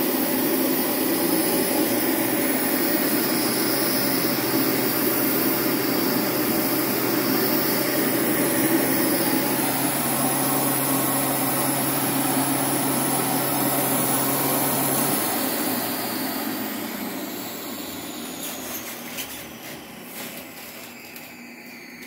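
Carrier gas furnace's ECM draft inducer motor running steadily with a hum, then switching off about fifteen seconds in and winding down over several seconds. The pressure switch never closes while it runs, so the igniter does not glow and the furnace drops out on a 31 pressure-switch code.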